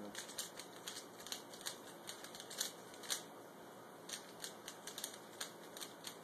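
Plastic Dayan Zhanchi 3x3 speedcube being turned by hand: a quick, irregular run of light clicks as its layers turn, with two louder snaps around the middle. The core looks unlubricated, with no silicone in it.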